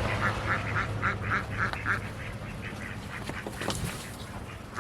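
Ducks quacking in a quick run of calls, about four a second, which thins out after about two seconds. A sharp knock sounds near the end.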